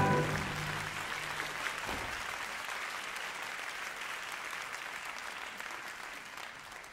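Audience applauding in a theatre as the orchestra's last held chord stops right at the start. The applause is a steady patter that slowly dies away.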